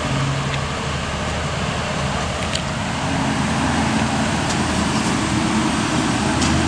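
Road traffic on a multi-lane street: cars passing with a steady rush of tyre and engine noise.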